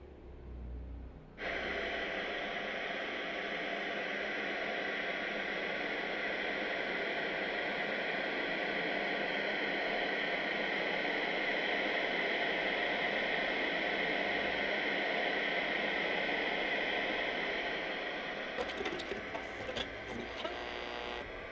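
White noise machine running with a steady hiss, switching in abruptly about a second and a half in. Near the end the hiss dips slightly and a few faint clicks and crackles break through it.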